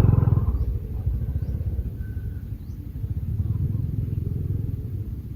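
A small engine running with a fast, low putter. It drops in level within the first second, then keeps going steadily.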